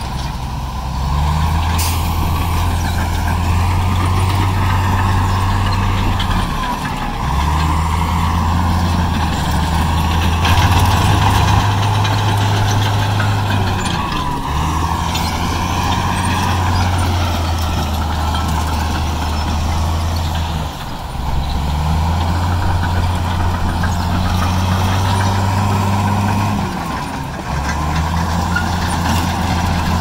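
Heavy diesel earthmoving machinery working. The deep engine note steps up and down and dips briefly about every six to seven seconds, under a steady higher whine.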